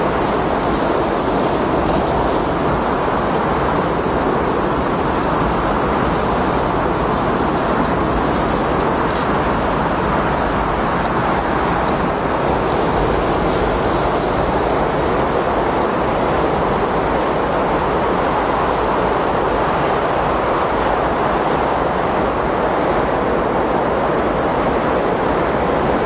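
Recorded windstorm: a steady, even rushing of strong wind with no distinct gusts or breaks.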